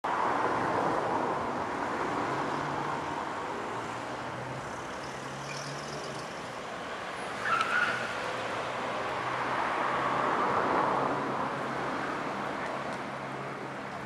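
City road traffic: a steady wash of passing cars that swells and fades, with a brief sharper sound about seven and a half seconds in.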